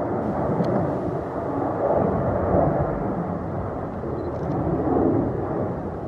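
Jet engines of a Go Air Airbus A320-family airliner at take-off power during the climb-out, heard from the ground as a steady roar whose loudness rises and falls gently.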